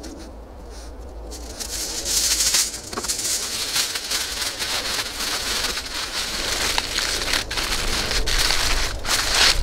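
A sheet of aluminium foil crinkling and rustling as it is handled, spread out and folded down over a foil tray. The sound starts about a second and a half in.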